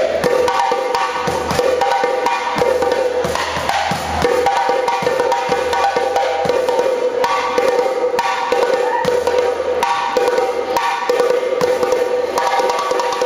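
Percussive music: fast, dense hand-drum strokes over a held, repeating melodic line.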